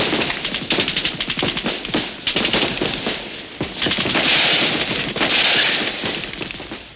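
Rifle gunfire in a film battle: many shots in quick succession, with a loud rushing hiss about four seconds in that lasts a couple of seconds.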